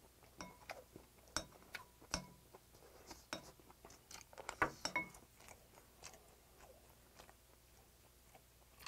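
Close-miked eating sounds: chopsticks and a metal spoon clicking against ceramic plates, a few clinks leaving a brief ringing tone, over soft chewing of marinated cockles and rice.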